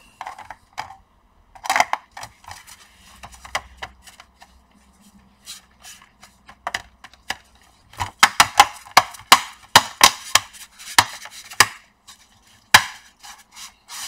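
Plastic bottom cover of an Acer Aspire 3 laptop being pressed back onto the chassis, its clips snapping into place. A few scattered clicks come first, then a quick run of sharp clicks in the second half and one last loud snap near the end.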